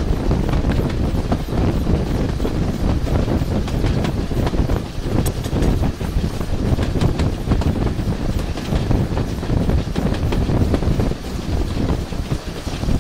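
Steam train running along the line, heard from the vintage carriage right behind the saddle-tank locomotive: a steady rumble with wheels clicking over the rail joints.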